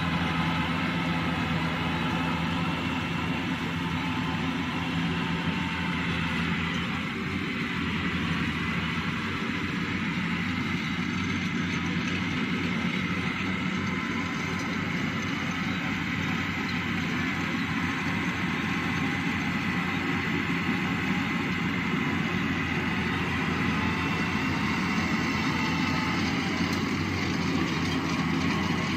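Yanmar AW82V rice combine harvester running steadily under load while cutting rice: a steady engine drone with a thin, high whine held over it.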